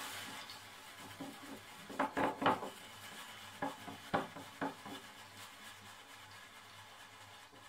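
Swing-top glass jar of hazelnuts in alcohol being turned by hand on a countertop: the glass base scrapes and rubs on the worktop, with a few knocks and clinks between about two and five seconds in.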